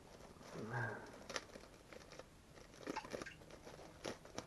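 Scattered crinkles, taps and clicks of packaging and merchandise being handled, with a brief low hum a little under a second in.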